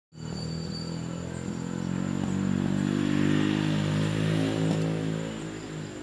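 A motor vehicle's engine running, growing louder to a peak around the middle and fading near the end, like a vehicle going past. A faint steady high tone runs underneath.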